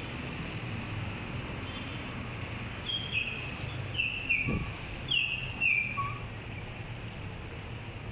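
Street traffic hum, with a bird calling about three seconds in: some six sharp, falling chirps, mostly in pairs, over about three seconds.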